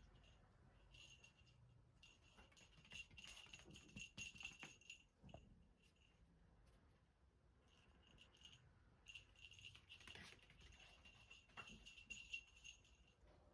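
A small bell jingling faintly in short, irregular runs, with pauses between them, as if shaken by movement.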